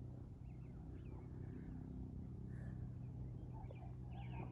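Birds chirping in short, scattered calls over a low, steady hum.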